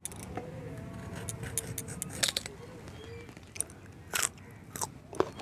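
Green hog plums (amra) being peeled against a boti blade: a series of short, irregular scraping and cutting strokes as the knife shaves off the skin.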